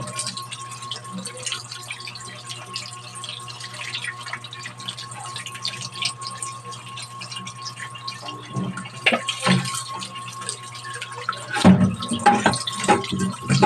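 Tap water running onto raw chicken pieces in a stainless steel colander as hands rub and rinse them. Sharper splashes and knocks come a few times in the second half, most around the end.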